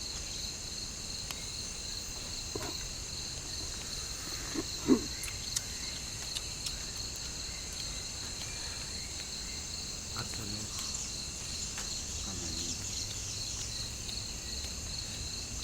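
Steady high-pitched chorus of forest insects, with a continuous buzz. A few faint clicks and a brief, louder low sound come about five seconds in.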